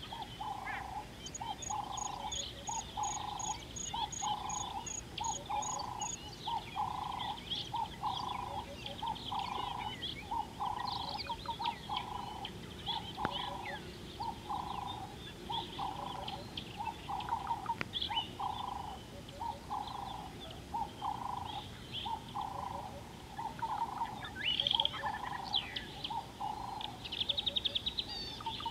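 Birds calling in dry bush: one bird repeats a low note steadily, a little faster than once a second, over a busy mix of higher chirps and trills from other birds, with a quick rattling trill near the end.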